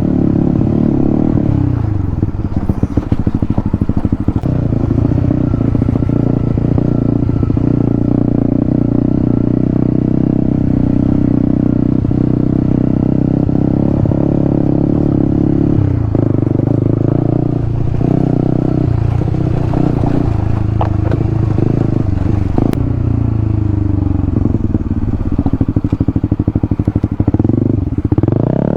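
Motorcycle engine running under way, its revs dropping and climbing again a few times as it is ridden.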